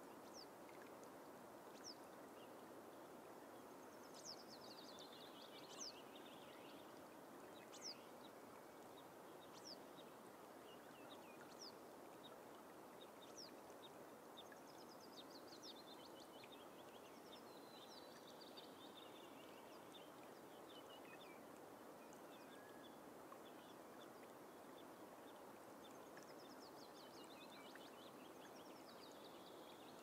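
Willow warbler singing faintly, its descending trilled song phrase heard three times, with short high single calls from another bird every second or two. It sits over a steady soft hiss of bog ambience.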